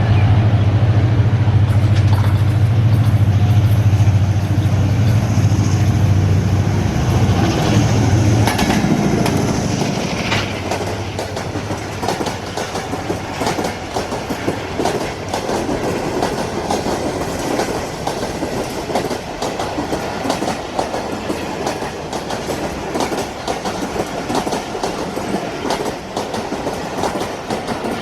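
A diesel locomotive passing close with a loud, low engine drone that drops away about eight seconds in. The train's cars follow, their wheels clicking rhythmically over the rail joints.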